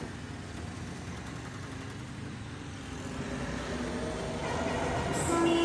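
Steady city road traffic: motorbikes and auto-rickshaws running past. A held tone at several pitches fades in and grows louder near the end.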